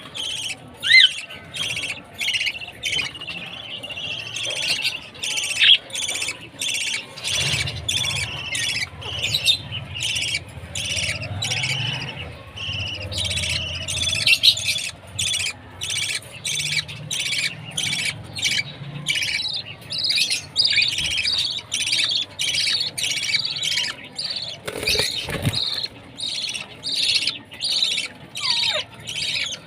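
Baby budgerigar chirping at feeding time: a long run of rapid, high, repeated chirps with hardly a pause.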